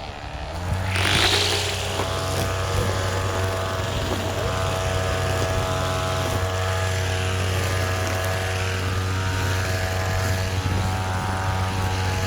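Line trimmer starting up about half a second in and then running at a steady speed, with a brief rising whine as it spins up; its head is spinning thick cable ties fitted in place of trimmer line.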